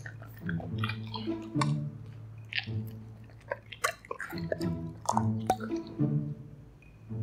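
Golden retriever chewing pieces of cheese, many short wet clicks and smacks at an uneven pace, over background music.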